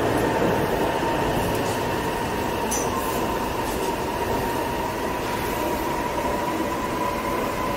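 Chongqing Rail Transit express metro train running between stations, heard from inside the carriage: a steady rumble of wheels on rail with a thin high tone that edges slowly upward in pitch.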